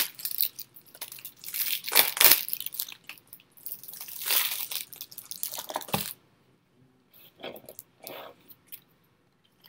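Foil trading-card pack wrapper crinkling and tearing in a run of rustling bursts, which stop about six seconds in; after that only a few faint, brief handling sounds.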